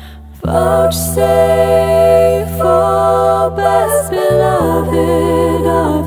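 Two women's voices singing a slow devotional song in harmony, a new phrase entering about half a second in, over a steady low drone that changes chord about four seconds in.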